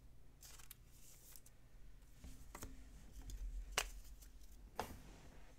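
Faint handling of trading cards and packs: soft rustles and a few scattered sharp clicks, the sharpest a little under four seconds in.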